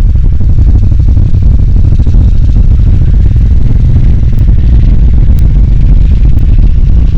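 Harley-Davidson Nightster with its Revolution Max 975T V-twin on the move, a loud, steady low rumble that holds even throughout with no rise or fall in revs.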